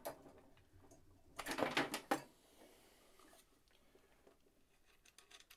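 Rustling and light clattering of tangled cords and gear being pulled out and handled, in one short burst about a second and a half in, with a faint click at the start.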